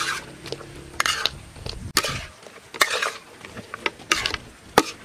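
Metal spatula scraping and stirring through pork ribs and chopped vegetables in a steel wok, with a scrape about once a second.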